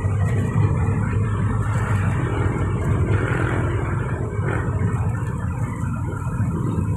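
Steady engine rumble and road noise of a delivery vehicle heard from inside the cab while it drives in traffic.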